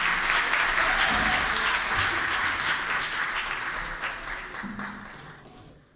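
Audience applauding, a dense clatter of many hands clapping that dies away over the last couple of seconds.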